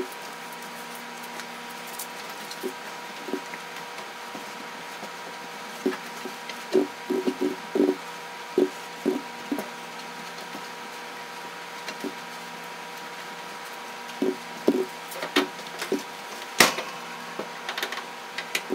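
Cloth wiping and rubbing over a gas stovetop's enamel surface and grates, giving clusters of short squeaks, with a sharp knock about three-quarters of the way through. A faint steady hum runs underneath.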